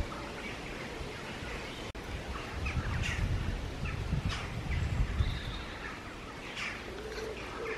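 Birds giving scattered short calls over a steady outdoor background, with a low rumble on the microphone for about three seconds in the middle.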